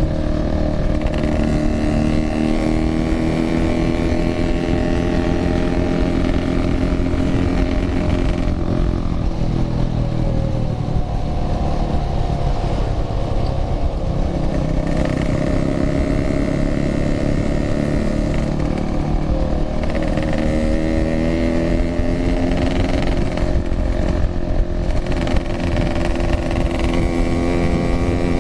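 Yamaha RX-King's 135 cc single-cylinder two-stroke engine running under way, its pitch rising and falling several times as the throttle opens and closes through gear changes.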